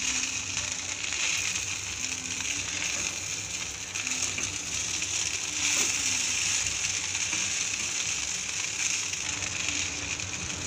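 Silicone spatula stirring and turning poha (flattened rice) in an iron kadhai over a gas flame: a steady soft scraping and rustle with a light sizzle.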